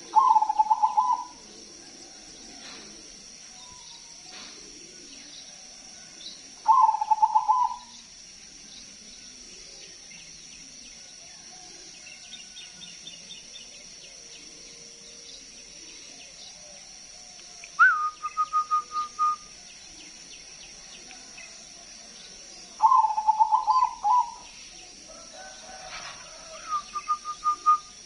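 Zebra dove (perkutut) singing: five short bursts of rapid staccato cooing notes, each about a second long and spread out with pauses between them. Two of the bursts open with a sharp upward note and then hold one steady pitch.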